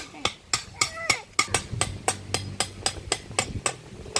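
A knife chopping on a board with quick, even strokes, about four a second.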